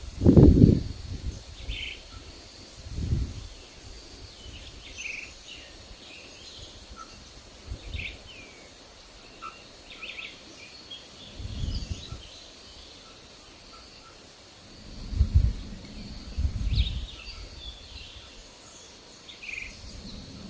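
Wild songbirds giving short chirps and calls scattered throughout, over a steady high insect hum. Low gusts of wind buffet the microphone several times, the loudest just after the start and again about fifteen seconds in.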